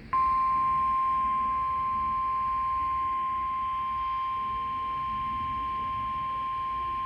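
Emergency alert attention tone: a single steady high beep that comes on suddenly and holds unbroken. It is the weather radio's 1050 Hz warning alarm tone, signalling that a severe thunderstorm warning message follows.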